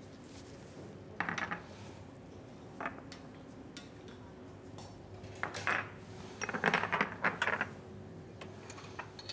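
Plates and cutlery clinking in short scattered bursts as dishes are handled, busiest a little past the middle.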